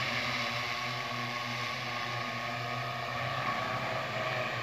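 Eight-rotor crop-spraying drone flying, its rotors giving a steady, even hum.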